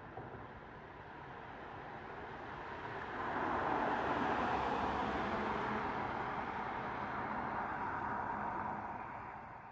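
Car driving on the road, a steady hiss of tyre and wind noise that gets louder about three seconds in and then fades out near the end.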